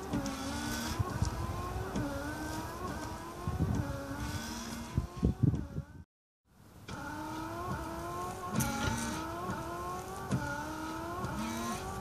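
Daewoo Matiz rear wiper gear motor running, the blade sweeping back and forth across the rear glass, its whine rising and falling with each stroke about every two seconds, with a few clicks. The sound breaks off briefly about halfway through.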